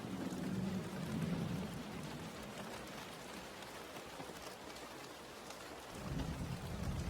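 Steady rain falling, with low rolling thunder in the first second or so that fades, then rumbles up again about six seconds in.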